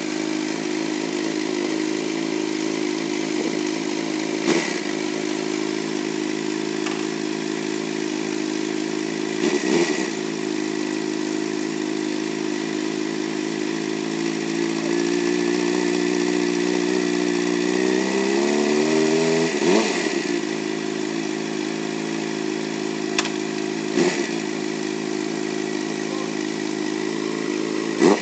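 Suzuki GSX-R sport bike's inline-four engine idling steadily. Past the middle the idle slowly rises over a few seconds, then drops back, with a few brief sharp noises along the way.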